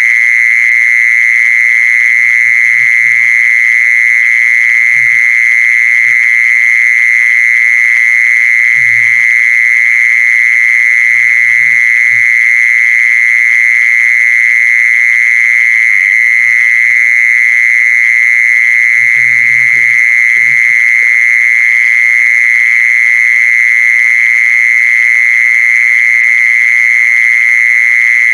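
Continuous, loud, unbroken insect trill held at one high pitch: the song of the insect called jee-son in Thai, used as a call to lure the insects in.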